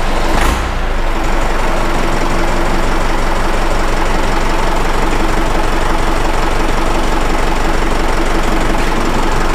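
Deutz Intrac 2003 tractor's engine running steadily with the front PTO turning, the PTO drive now almost inaudible. A brief knock comes about half a second in. The remaining noise is one the owner puts down to play in the drive and would ignore.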